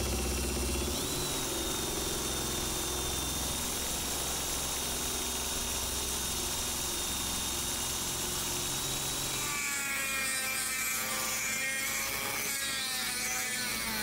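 Small rotary tool (Dremel) running with a steady high whine as its bit cuts a plastic switch plate. About ten seconds in, the sound changes to a rougher whine that wavers in pitch as the tool grinds the plate's opening.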